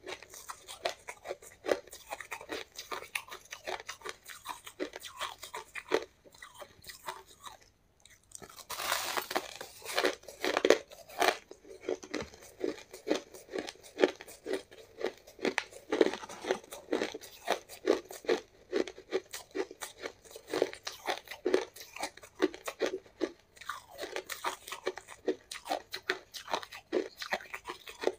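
Close-up crunching and chewing of a packed clump of shaved ice: a steady run of crisp crunches, about two a second, with a brief lull just before eight seconds in and a denser, louder crunch around nine seconds in.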